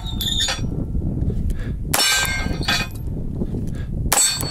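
Two pistol shots about two seconds apart, each followed by a steel target ringing out with a bright clang. At the start, the ring of a steel plate from a shot just before is still fading. A steady low rumble, like wind on the microphone, runs underneath.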